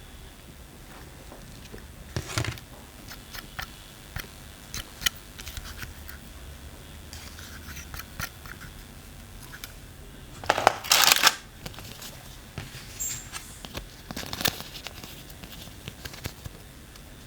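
Handling noises from a mini air conditioner being unboxed: scattered light clicks and taps, with a louder burst of rustling, like packaging being torn or crumpled, about eleven seconds in.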